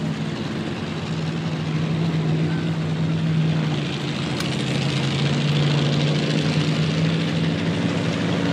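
Propeller airplane engine droning at a steady pitch. A hiss of wind and propeller noise swells slightly about halfway through.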